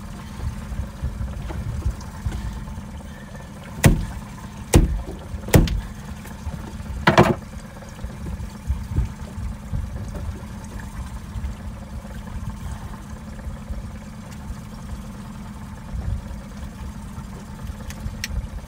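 Outboard motor running steadily at trolling speed, a low even hum. About four seconds in it is broken by four sharp knocks spread over about three seconds, the last one longer and rougher.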